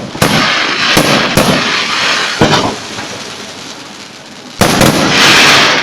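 Fireworks display: shells bursting with several sharp bangs amid dense crackling, dying down, then a loud burst about four and a half seconds in, followed by about a second of crackling.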